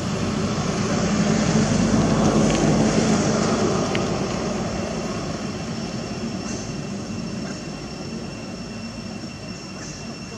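A passing engine's rumble, growing louder over the first two or three seconds and then slowly fading away.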